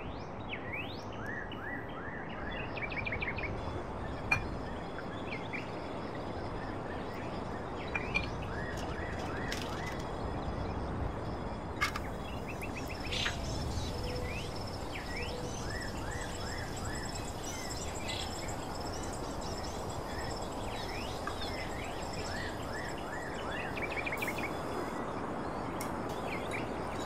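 Small birds chirping in short repeated calls over a steady background hiss, with a few brief clicks.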